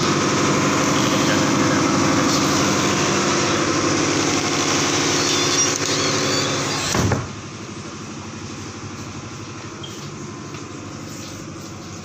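Tugboat's diesel engine running steadily and loudly on deck. About seven seconds in, a knock, then the sound drops sharply to a muffled, quieter steady hum, heard from inside the accommodation.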